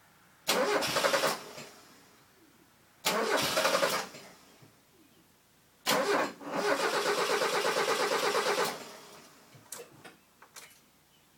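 Mazda 323 GTX engine cranking on the starter three times without catching: two short cranks, then a longer one of about three seconds, each with an even pulsing rhythm. It is a no-start after the engine was set to top dead centre. A few faint clicks follow near the end.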